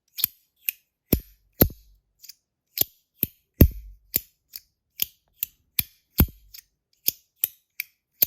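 Compoform V1.1 Mini fidget slider being worked by hand, its plates snapping into place in a run of sharp clicks, irregular at roughly two to three a second, some louder with a short low knock.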